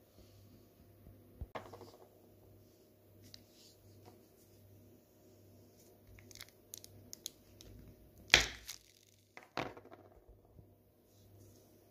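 Kitchen knife pressing down and cutting through a filled chocolate candy on a sheet of paper wrapper, with paper crinkling and small clicks. The loudest moment is a sharp crunch about eight seconds in as the blade goes through, with a second one about a second later.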